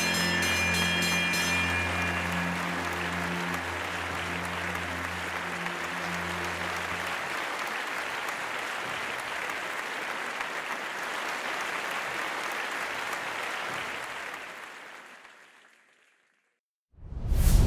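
Crowd applauding steadily over background music, with a ringing bell that stops in the first couple of seconds; the music stops about seven seconds in and the applause fades away about fifteen seconds in. Near the end, after a moment of silence, a sudden loud hit.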